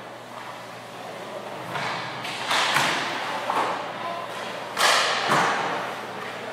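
Hockey pucks being shot at a goalie: sharp cracks of stick on puck and pucks hitting pads, echoing in an indoor ice rink. The hits come in two pairs, the loudest about two seconds apart.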